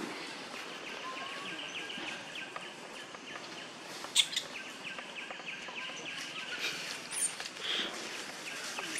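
Outdoor forest ambience: a steady high trill with fast even pulses and a few bird chirps over it, and a sharp click about four seconds in.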